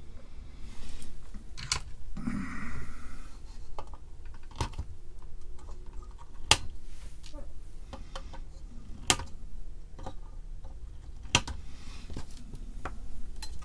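Side cutters snipping the excess leads of newly soldered electrolytic capacitors on a circuit board: a string of sharp snips, a second or two apart, with a short rustle of handling between.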